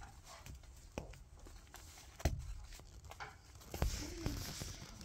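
A kitten pouncing and scrambling on a quilted pad while it plays with a fabric wand toy: a few soft thumps, the loudest about two seconds in, then rustling near the end.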